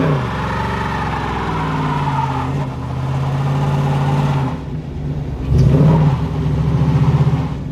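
Dodge Challenger's engine held at high revs during a burnout, its rear tyres spinning on the pavement with the traction control switched off. The revs dip about two thirds of the way in, then rise again and hold, loudest near the end.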